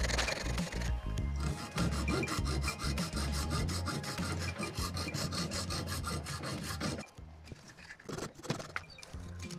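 A flat file rasping back and forth over the housing of a cooler water pump, scraping off crusted dirt in quick, even strokes; the filing stops about seven seconds in. Background music with a low beat plays underneath.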